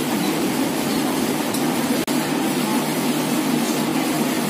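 Steady hum and rush of air conditioning or ventilation in a room, with a single sharp click about two seconds in.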